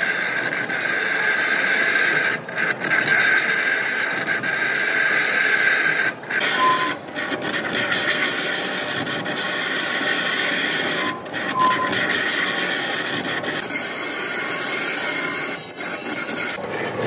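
Large manual lathe turning the rim of a big spoked iron wheel, the cutting tool scraping steadily against the rotating rim, with brief dips in the sound about four times.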